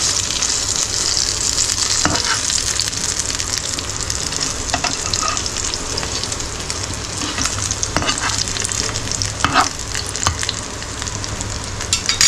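Semolina-and-poppy-seed-coated rohu fish sizzling steadily in oil in a nonstick frying pan on low flame. A spatula scrapes and knocks against the pan several times as the fish are turned, loudest near the end.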